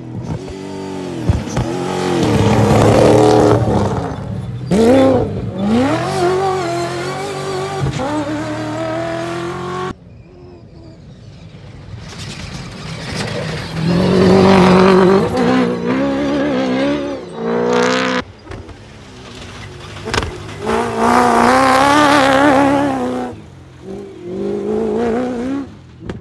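Cross-country rally race trucks driving past at speed on dirt tracks, their engines revving hard. The pitch climbs through the gears and drops as each truck passes; there are several separate passes, with an abrupt break about ten seconds in.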